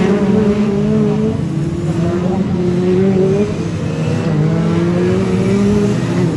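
Several Brisca F2 stock car engines running, their pitch slowly rising and falling as they go round the track.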